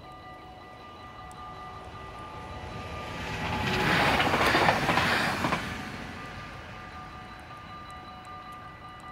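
Passenger train passing over a level crossing, its rush rising to a loud peak about four to five and a half seconds in and then fading away. The crossing's warning bell keeps ringing steadily through the pass.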